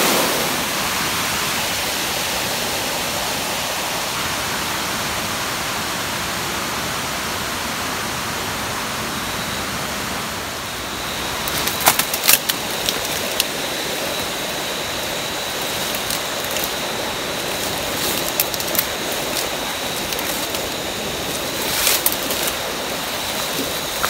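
Steady rush of falling water nearby. About halfway through, leaves and twigs begin to rustle and crack as someone pushes through dense undergrowth, and a thin, steady high whine sounds alongside.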